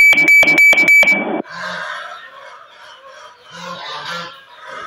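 A loud, rapid beeping, about four beeps a second, cuts off after about a second and a half. Then a flock of chickens clucks as it feeds on greens, with a few short low calls from other birds.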